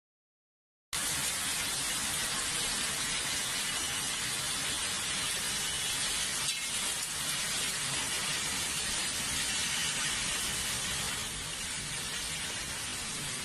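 Torrential storm rain pouring down in a steady, dense hiss, which cuts in about a second in after a brief silence.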